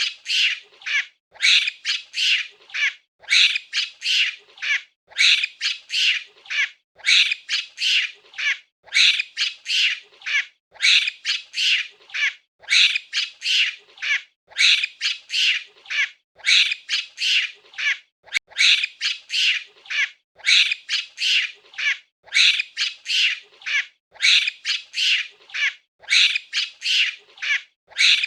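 Monkey calls: rapid, shrill squawking cries in quick clusters, the same pattern repeating about every two seconds like a loop.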